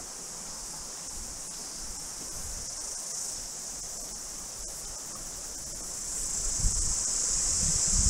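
A steady, high-pitched chorus of cicadas singing in the bush. Low wind rumble on the microphone builds near the end.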